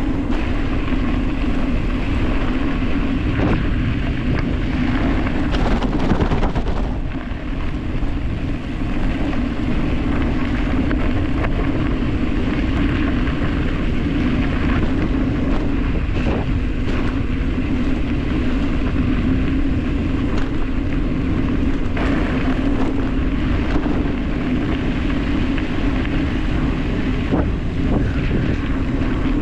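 Wind rushing over the microphone at descent speed, with tyres rumbling over a dirt road and the scattered knocks of bumps.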